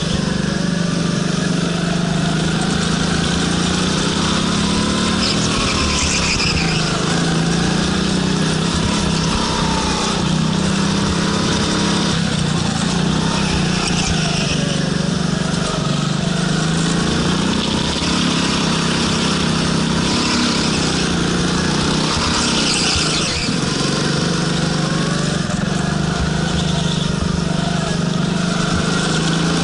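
Go-kart engine running hard from on board the kart, its pitch rising and falling over and over as it accelerates and eases off around the lap.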